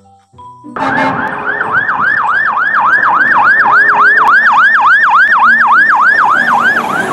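Fire engine siren in a fast yelp, its pitch sweeping up and down about three times a second, starting about a second in, over engine and road noise.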